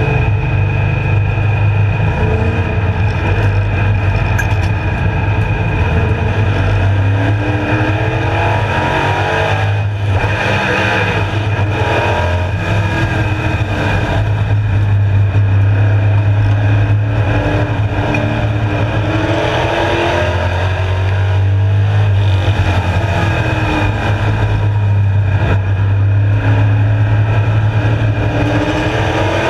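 Street Stock race car's engine heard from inside the cockpit, running hard with its pitch rising and falling over and over as the throttle is opened and lifted, with a brief drop about ten seconds in.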